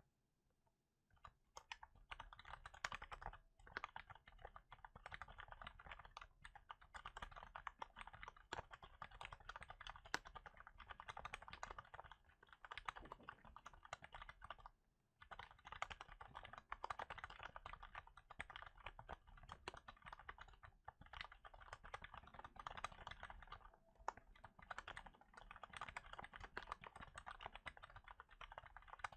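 Continuous typing on a Cherry MX Board 3.0 S mechanical keyboard with Cherry MX Brown switches, a silicone dust cover laid over the keys. Typing starts about a second in and breaks off briefly about halfway through.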